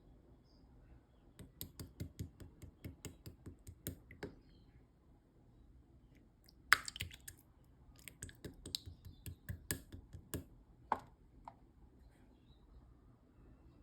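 Opaque light-purple slime being squished and pressed by hand, giving runs of sharp wet clicks and pops, with a pause and then a louder pop about halfway through.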